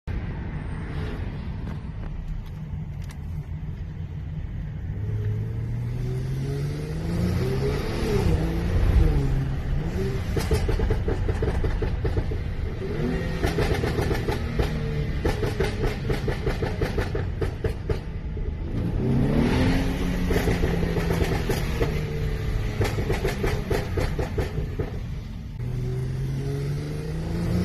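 Tuned Mercedes-Benz E400's twin-turbo V6 accelerating, its pitch climbing, then long runs of rapid crackles and bangs from the exhaust; the pull and the crackling come round again, with a third pull starting near the end.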